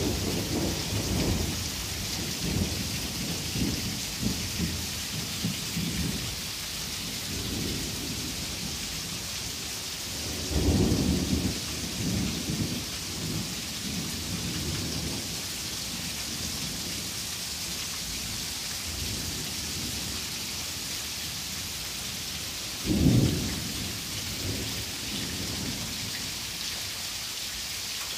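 Heavy rain falling steadily in a thunderstorm, with thunder rumbling three times: at the start, again about ten seconds in, and again about two-thirds of the way through, each roll fading over a few seconds.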